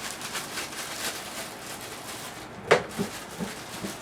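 Scratchy rustling and scraping, which sounds like a cat in a litter box, with one sharp click a little under three seconds in.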